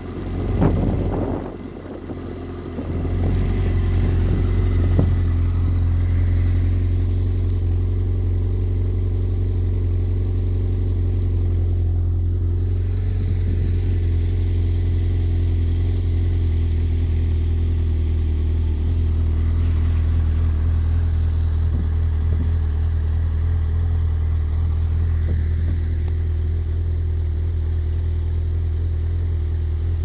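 Snowmobile engine running with a steady, unchanging drone that settles in about three seconds in, after a few brief knocks.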